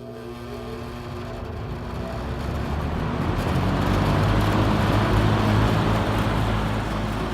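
JCPenney 9705 box fan (a Lakewood relabel with a McMillan motor and metal blades) starting up: the motor hum and the rush of air from the blades grow steadily louder for about four seconds as it spins up to speed, then hold steady. A buzz from the vibrating grill runs through the startup.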